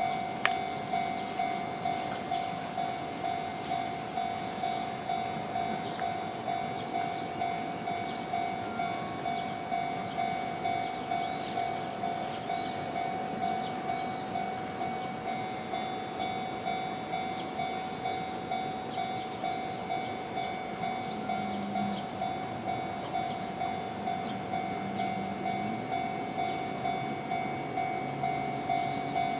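Japanese railway level-crossing alarm bell ringing with a steady, even rhythm of about one and a half strikes a second, the warning that a train is approaching.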